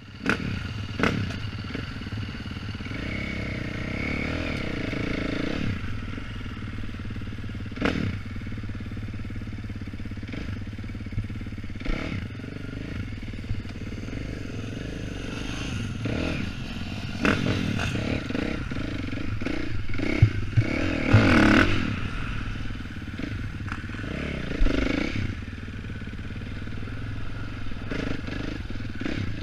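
Dirt bike engine running at low throttle on a slow lap, heard from a helmet-mounted camera, opening up louder about two-thirds of the way through. Sharp knocks and rattles come several times along the way.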